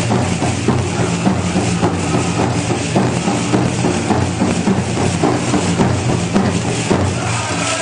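A powwow drum group beats a steady rhythm on a big drum and sings a side-step song. Over it comes the jangling of the metal cones on the jingle dresses as the dancers step.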